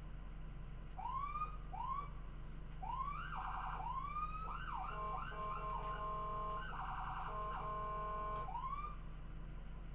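Electronic ambulance siren being cycled through its tones: a series of short rising whoops, two bursts of rapid warble, and a steady horn-like tone held twice for over a second. A low steady hum runs underneath.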